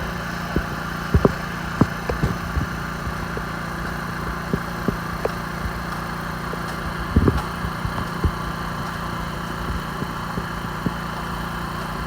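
An engine running steadily at idle, with irregular sharp clicks and taps scattered over it, a cluster of them around seven seconds in.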